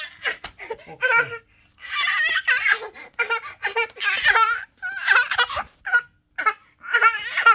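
A young child laughing in a string of high-pitched bursts with short breaks between them.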